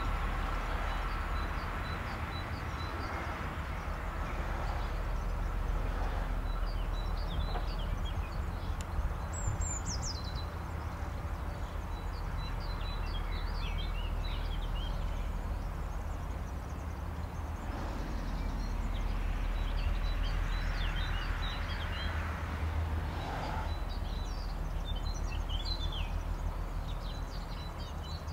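Outdoor trackside ambience: songbirds chirping repeatedly over a steady low rumble, with a distant electric train faintly heard approaching along the line.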